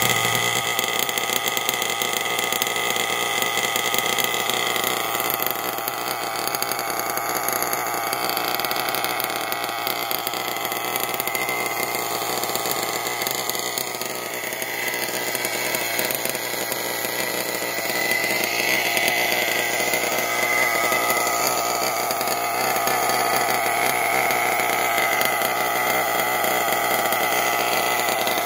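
Small nitro (glow-fuel) RC engine fitted with a tuned exhaust pipe, idling steadily with a high buzzing note; the level dips slightly about halfway through and then comes back up.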